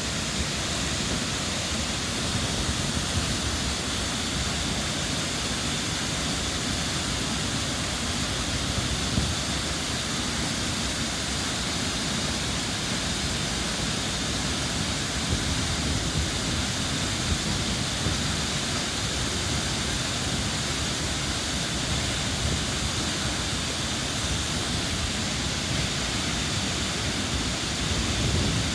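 Minoo Falls, a waterfall about 33 metres high, pouring into its pool: a steady rushing of water with a strong low rumble.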